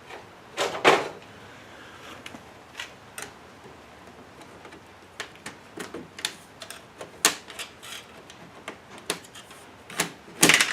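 Irregular plastic clicks, taps and snaps as a flat-head screwdriver pries apart the faceplate of a late-1990s Chrysler car CD/cassette radio, loosening its buttons. The loudest clatter comes about a second in and again near the end.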